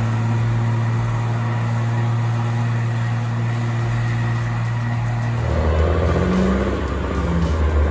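Motor vehicle engine running steadily under load, its pitch dropping to a lower, deeper note about five and a half seconds in.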